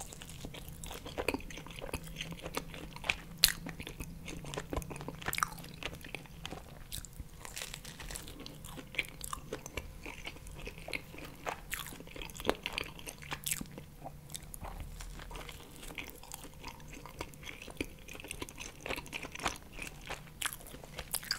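Close-miked eating sounds: a person biting into and chewing pizza, with irregular sharp crunches and clicks of the mouth throughout, one sharper crunch a few seconds in.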